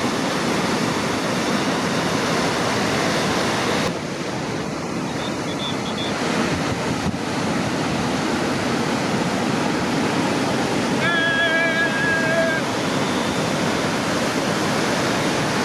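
Ocean surf breaking and washing, a steady rush of water noise that shifts slightly about four seconds in. Near the end a faint, brief pitched call sounds for about a second and a half over the surf.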